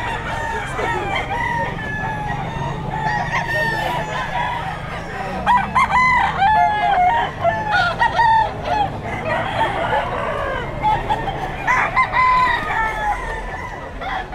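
Many roosters crowing over one another, with clucking among them; the crowing is densest and loudest in the middle stretch.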